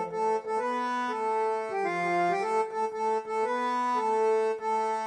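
Instrumental interlude with no voice: an accordion-like reed instrument plays a melody of held notes over sustained chords, stepping from note to note about every half second.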